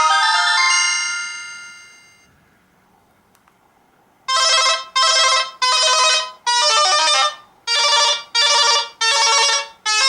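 Samsung SCH-A915 ringtones played on a Philips Xenium E168 phone. A melodic ringtone fades out over the first two seconds. After a short pause, a new ringtone starts about four seconds in as a run of short, loud chords, about eight in quick succession.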